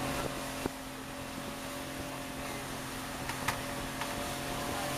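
Small passenger boat's engine running steadily underway, with the rush of wind and water around the open boat. Two short knocks break in, about a second in and again past the middle.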